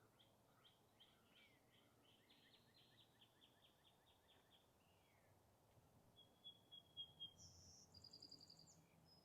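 Faint songbird chirping. A rapid series of short falling notes runs for about the first five seconds, then a thin high note and a quick trill come near the end.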